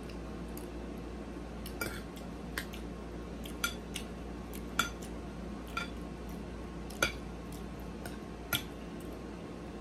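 Metal fork clinking and scraping against a plate while eating, with sharp clinks about once a second, over a steady low hum.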